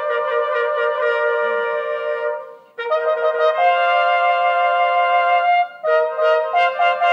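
Brass band playing slow held chords with a cornet line, the phrase breaking off briefly about two and a half seconds in and again just before the end.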